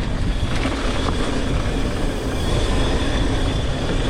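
Mountain bike descending a rough dirt trail heard from a rider-worn action camera: constant rumble and rattle of the bike over the ground with wind on the microphone. About a second and a half in, a thin high squeal sets in and holds, the disc brakes dragging.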